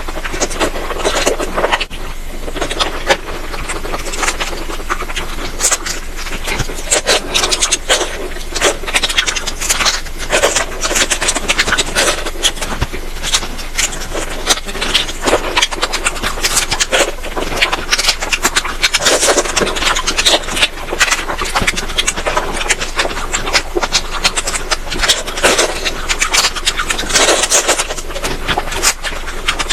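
Close-miked chewing and crunching of food, a dense run of quick crackles and mouth clicks that keeps going without a break.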